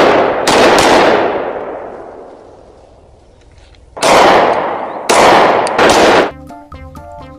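Pistol shots: one about half a second in that trails off in a long echo, then three more in quick succession from about four seconds in.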